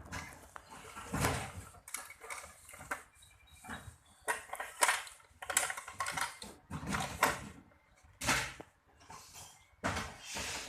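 Small plastic toy pieces and packaging being handled: irregular rustles, clicks and light clatters.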